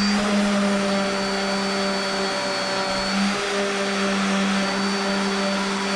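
A small electric machine running steadily, a constant hum over a hiss of moving air, unchanged throughout.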